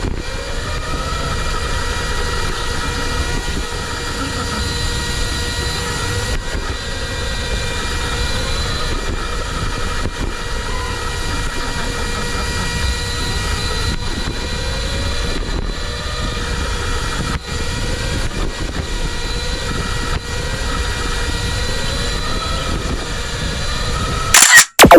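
RC car driving: its brushless electric motor whines, rising and falling in pitch again and again with the throttle, over a steady rumble and a constant electronic hum. A short loud burst comes near the end, and the sound cuts off abruptly.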